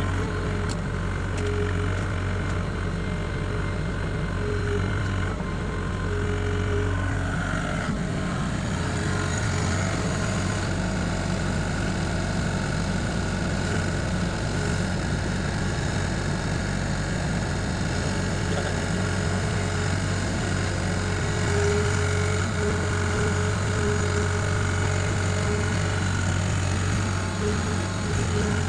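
Excavator engine running steadily under operation, its note changing about eight seconds in.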